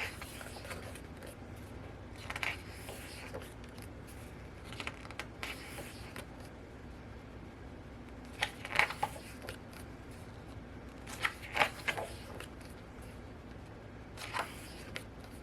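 Pages of a thick photobook being turned, a short paper rustle and scrape about every three seconds, five times.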